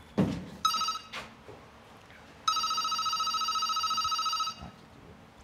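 Telephone ringing with an electronic trilling ring: a short ring of about half a second, then a longer ring of about two seconds. A dull thump comes just before the first ring.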